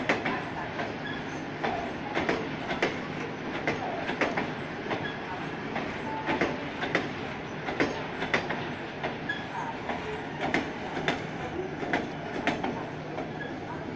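Blue Indian Railways passenger coaches rolling past on the station tracks: a steady rumble from the wheels, with frequent sharp clickety-clack clicks as the wheels cross rail joints and points.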